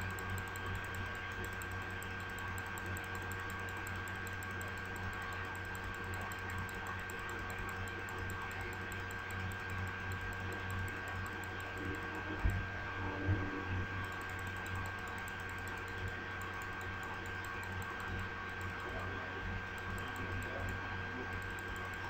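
Steady electrical hum and hiss from a desktop recording setup, with two soft knocks about halfway through.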